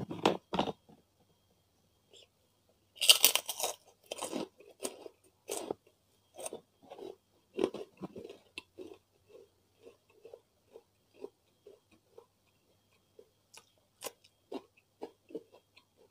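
A person biting and chewing crunchy food close to the microphone: a loud crunch about three seconds in, then a long run of smaller crisp chews.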